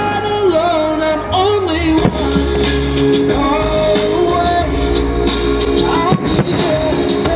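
A song with a singing voice plays throughout, with a couple of sharp firework bangs under the music, one about two seconds in and one near six seconds.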